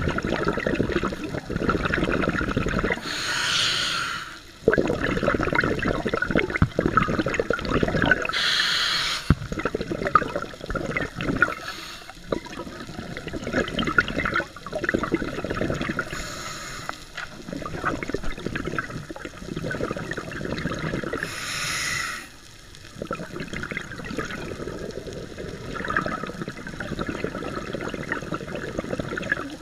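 Scuba diver breathing through a regulator, heard underwater through a camera housing: a short hiss of air on each inhale, then a long bubbling rumble of exhaled air, about four breaths.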